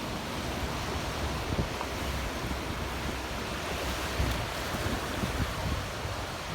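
Ocean surf breaking on a beach with strong wind, a steady wash of noise, and gusts rumbling on the microphone.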